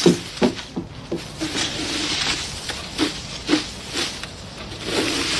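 Yard cleanup: short scraping strokes of a long-handled yard tool on a wooden deck, about two a second at first, with longer stretches of rustling in between.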